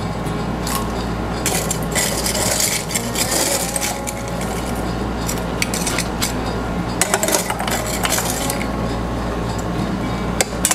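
A metal spoon clinking against glass and ceramic bowls as dry, crispy croutons are scooped and dropped into soup bowls, with many short irregular clinks and rattles over a steady low hum.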